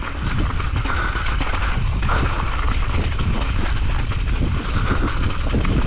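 Specialized Kenevo SL e-mountain bike descending a rough trail of loose gravel and sharp rocks: the tyres crunching and the bike rattling steadily over the rocks, with wind rumbling on the microphone.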